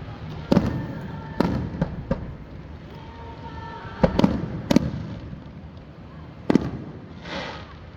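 Aerial fireworks bursting in a display: a series of sharp booms at irregular intervals, some in quick succession, with a short hissing crackle near the end.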